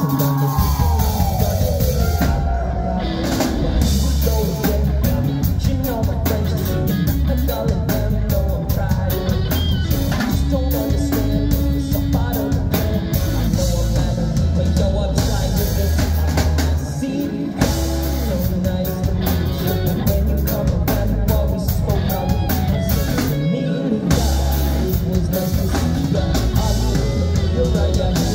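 Live rock band playing through a club PA: electric guitars, bass guitar, keyboard and drum kit together, loud and steady, with a falling pitch glide in the first two seconds.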